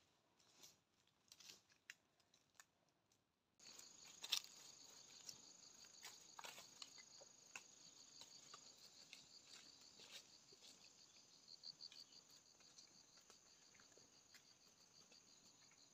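Faint rustling and twig clicks in dry brush for the first few seconds. Then, from about three and a half seconds in, a steady high-pitched insect chorus with a fast pulsing trill, crickets or cicadas, with scattered soft clicks over it.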